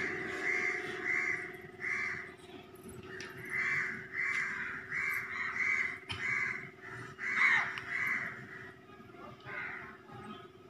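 Crow cawing repeatedly: a run of short caws, with a short pause after the first three, over a faint steady hum.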